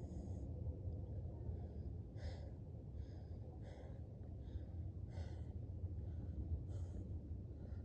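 A person breathing in and out, with a breath about every second and a half, over a steady low rumble.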